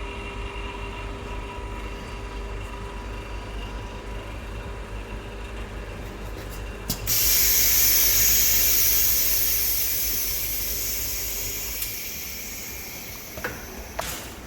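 Vacuum lamination machine running its cycle: a steady pump hum, then about halfway a click and a loud hiss of air rushing into the chamber that slowly fades away, with a couple of small clicks near the end.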